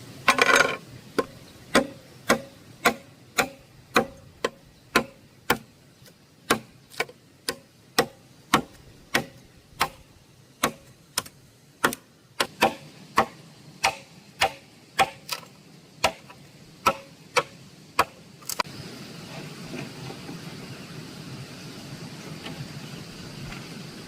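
A steady series of sharp knocks, about two a second, like repeated blows of a hand tool; they stop a little after 18 seconds and a steady hiss follows.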